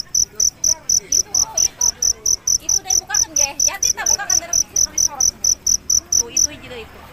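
Cricket chirping in a fast, even rhythm of about four to five high-pitched chirps a second, stopping abruptly near the end.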